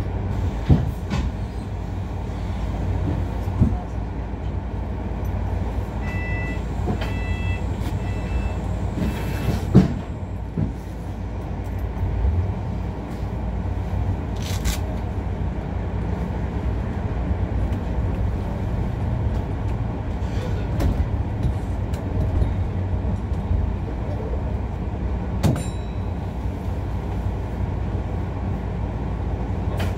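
Interior of a New Routemaster hybrid double-decker bus on the move: a steady low drivetrain and road rumble with occasional knocks and rattles from the body. A short run of beeps, about one a second, sounds about a quarter of the way through.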